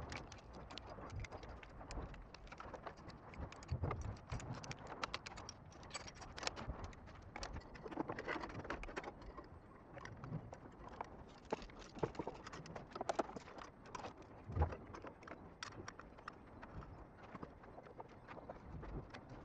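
Hand tools and engine parts clicking and knocking as work is done under the hood: irregular light taps and clinks, with one louder knock about three-quarters of the way through.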